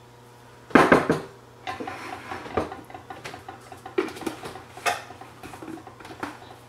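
Dishes being handled on a kitchen countertop: a clatter of knocks about a second in, then scattered clinks and knocks as a clay bowl and a glass cup are moved about.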